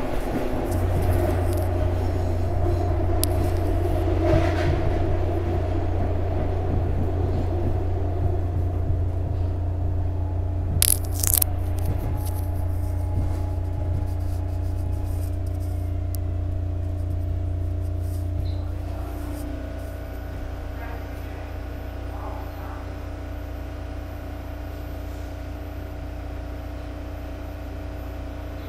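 SEPTA Market-Frankford Line train heard from inside the car, its motors humming steadily as it runs on the rails, with two brief sharp high squeaks about eleven seconds in. Partway through, the low hum drops away and the sound gets quieter as the train slows alongside a station platform, leaving a lighter steady whine.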